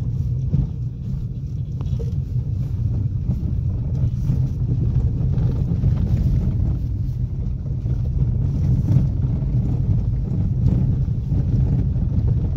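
A vehicle driving at night over a rough dirt track: a steady low engine and road rumble with scattered small knocks and rattles from the bumps.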